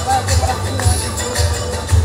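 Gospel song music with a steady bass beat and a melody over it, played for a children's group dance.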